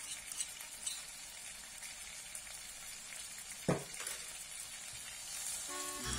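Chicken pieces, onion and grated ginger sizzling as they fry in oil in a nonstick pan, with a spatula stirring them near the end. One sharp knock about three and a half seconds in, and background music comes in at the very end.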